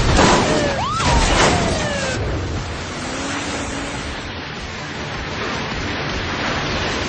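Car crash noise: a loud crash at the start and another about a second in, with squeals sliding in pitch, then a steady rushing noise.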